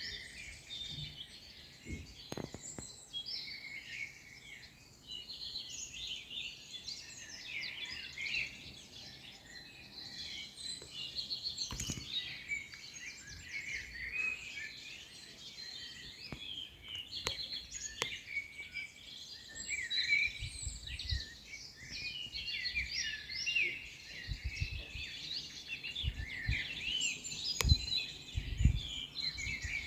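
Many songbirds singing and chirping together in a busy, continuous chorus. A few low thumps come through in the second half.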